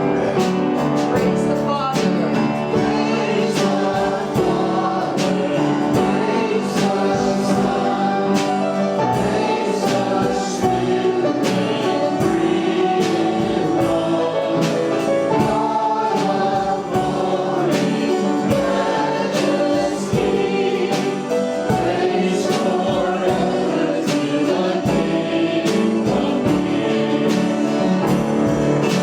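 Congregational worship song: a group of voices singing a gospel hymn over guitar accompaniment with a steady beat.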